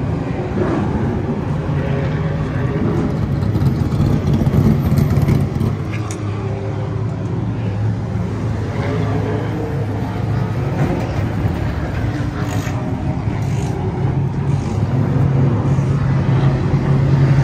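Late model stock car V8 engines running in the pits, a steady low engine drone that gets louder toward the end as a car comes close.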